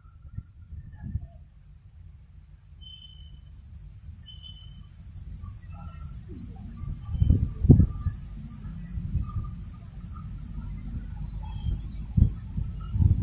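Rural outdoor ambience: a steady high insect drone with scattered bird chirps over it. A low rumble swells through the middle, with a few loud thumps about halfway and near the end.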